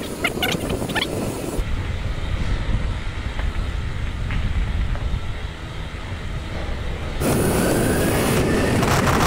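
Mountain bike riding downhill on a rough track: wind buffeting the microphone and tyres rolling over gravel, with a few short squeaks about a second in. The noise gets louder and rougher about seven seconds in.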